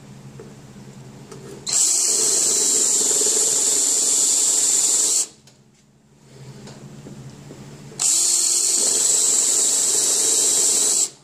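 Cordless drill with a spot weld cutter boring out spot welds in a truck's sheet-steel cab corner: two cuts of about three and a half and three seconds, a steady harsh high-pitched grinding, with a pause of a few seconds between them.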